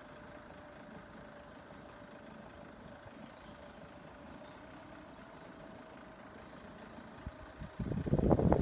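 Faint steady hum with a thin, even high tone, from the quiet closed level crossing. Near the end a voice cuts in loudly.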